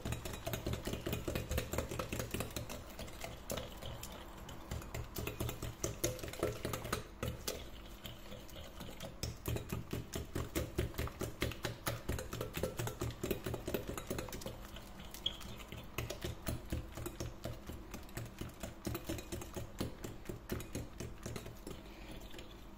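Wire whisk beating eggs and sugar by hand in a glass bowl: fast, rhythmic clicking and swishing of the metal wires against the glass, about four strokes a second, as the mixture is whipped to a foam.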